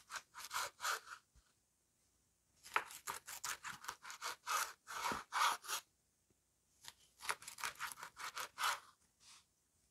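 A knife slicing through a piece of smoked halibut on a wooden cutting board: short rasping strokes in three runs, with quiet pauses between them.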